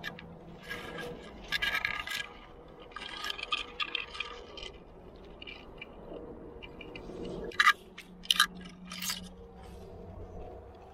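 Climbing gear clinking and scraping: carabiners and protection on a climber's rack knock together and rub against rock, with two sharp metallic clinks a little under a second apart about three-quarters of the way through.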